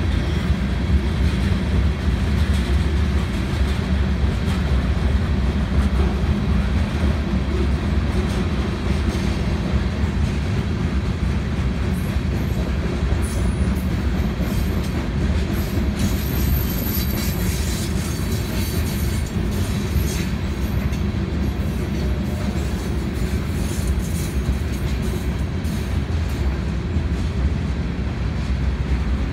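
Covered hopper cars of a long freight train rolling past: a steady rumble of steel wheels on the rails.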